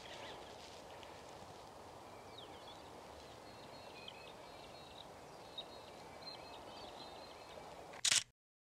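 Faint outdoor dawn ambience with small birds calling in repeated short phrases from about two to seven seconds in. Near the end comes a short, sharp, loud burst, and then the sound cuts off abruptly.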